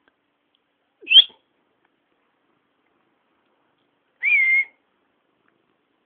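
A person whistling short notes with pauses between them: a quick upward whistle about a second in, then a longer note that rises and falls, just past the middle.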